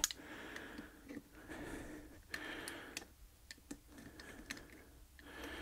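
Quiet handling noises: a scattering of light ticks and clicks over soft rustling, as a small chewed drive part is turned over in the hands.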